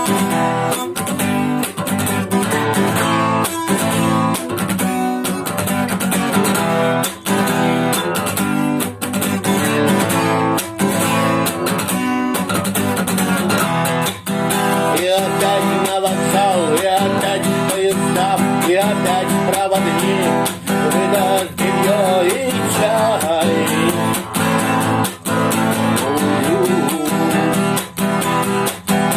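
Instrumental break of a song: acoustic guitar strumming chords in a steady rhythm, with a lead melody of bending, gliding notes coming in over it about halfway through.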